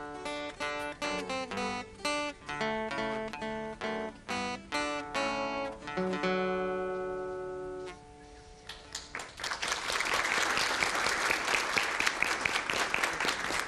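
Acoustic guitar ensemble playing plucked notes, ending about six seconds in on a held final chord that rings and fades out. A couple of seconds later an audience applauds.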